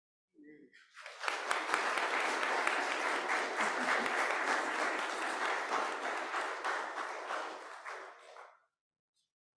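Congregation applauding: hand clapping starts about a second in, holds steady for some seven seconds and tapers off near the end.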